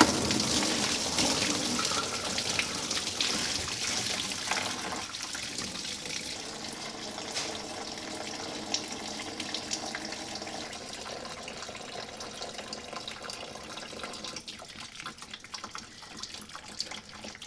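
Engine coolant gushing out of a freshly pulled lower radiator hose and splashing into a plastic drain tub as the radiator is drained. It starts suddenly at full force, eases after about five seconds, and runs on as a thinner, steady stream.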